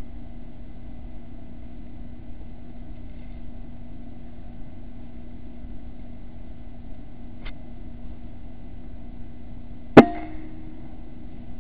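Air rifle firing a single shot about ten seconds in: one sharp crack with a brief ringing tail. A steady low hum with a faint high whine runs underneath.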